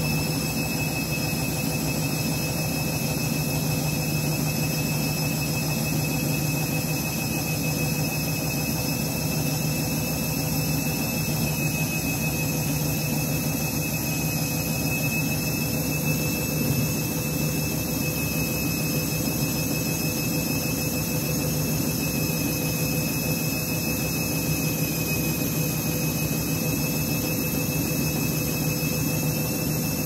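Candy front-loading washing machine running steadily, its motor giving a constant high whine over a low hum as the drum turns through a load thick with suds. The heavy foam is the sign of a sudslock holding the machine back from a full spin.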